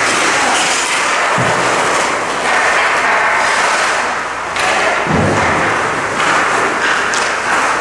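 Steady scraping hiss of ice skates on a hockey rink, with two dull thuds against the boards, about a second and a half in and again about five seconds in.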